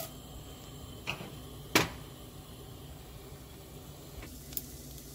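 Panch phoron spice seeds (mustard, fenugreek, fennel, cumin and coriander) frying in hot ghee: a soft, steady sizzle broken by a few sharp pops as the seeds crackle, the loudest a little under two seconds in.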